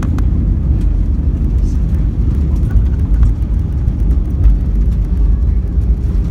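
Cabin noise of an Airbus A320-214 rolling along the runway after landing: a loud, steady low rumble from its CFM56 engines and wheels, with a few faint clicks.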